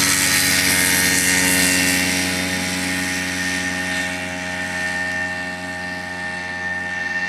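Belite ultralight airplane's engine and propeller running at takeoff power with a steady pitch, getting fainter about two seconds in as the plane lifts off and climbs away.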